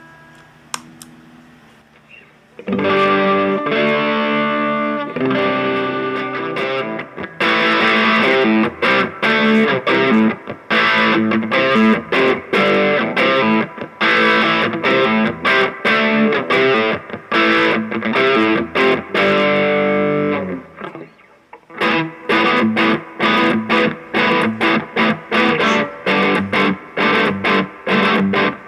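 Electric guitar played through a Shredhead distortion pedal into a small, cheap amplifier: heavily distorted sustained chords and riffs. After a brief pause about two-thirds of the way through, it changes to fast, short, choppy picked notes.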